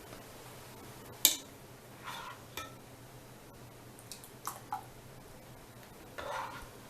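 A kitchen utensil clinks and scrapes against a pot and glass canning jars as thick barbecue sauce is spooned into half-pint jars. There is a sharp clink about a second in, then a few shorter scrapes and light clicks, with a softer scrape near the end.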